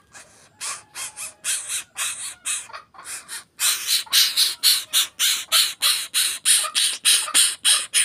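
Tame greater coucal (Centropus sinensis) giving a fast series of harsh, rasping begging calls, about two to three a second, fairly quiet at first and much louder from about three and a half seconds in.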